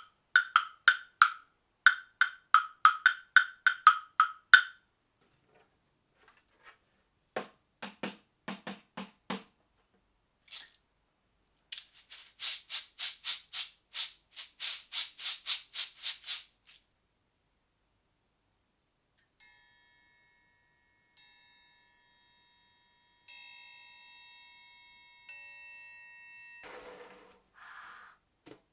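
Small percussion instruments and found objects struck one after another: a quick run of hollow knocks at one pitch for the first few seconds, two more runs of rapid clicks, then several ringing metallic notes that fade slowly, and a short rattle near the end.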